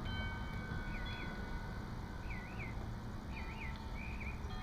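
A bird calling in the background, giving a long held whistle and then short swooping whistled notes repeated several times, over a steady low outdoor rumble.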